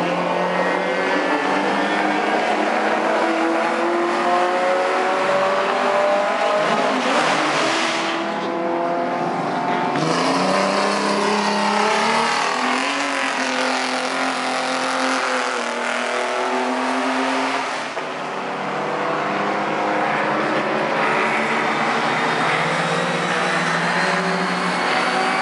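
Classic racing cars' engines running hard around a circuit. Several engine notes overlap, their pitch climbing and dropping over and over as the cars accelerate and lift.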